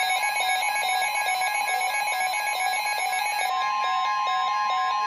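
Electronic alert tones: a fast, stepping melody of beeping square-wave notes. About three and a half seconds in, a steady tone near 1 kHz joins it, which in a weather-radio warning is the 1050 Hz warning alarm tone that comes before the message.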